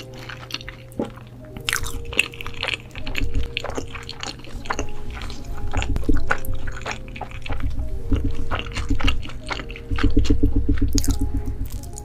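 Close-miked eating sounds: wet chewing, squishing and smacking as a person eats cheese pizza and sauced spaghetti, with soft background music.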